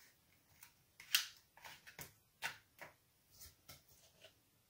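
A spoon scraping and tapping as a thick dishwasher-tab paste is pressed into an ice cube tray: faint, irregular clicks, the loudest about a second in.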